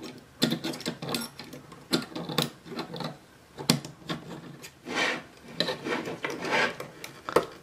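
Metal spring clip being worked back onto a finned heatsink on a circuit board with a screwdriver: irregular scraping and sharp clicks of metal on metal.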